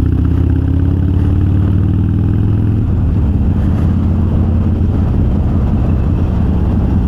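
Harley-Davidson Sportster V-twin running under way through Vance & Hines Twin Slash 3-inch slip-on mufflers with quiet baffles. The exhaust note is still pretty loud but with less raspiness and harshness. Its pitch rises a little over the first couple of seconds, then holds steady.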